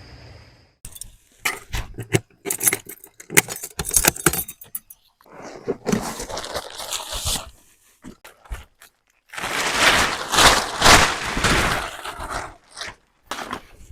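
Gear being handled by hand: a run of sharp clicks, clinks and scraping rustles in irregular bursts, with a longer stretch of rustling near the middle.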